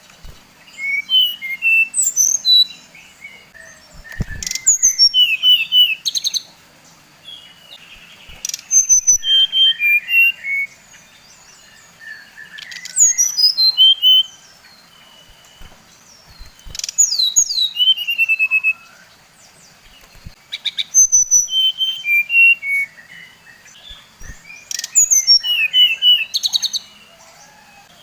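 Sikatan rimba dada coklat (SRDC, a jungle flycatcher) singing: phrases of quick, high whistled notes, many sliding down in pitch, repeated about every four seconds with short pauses between.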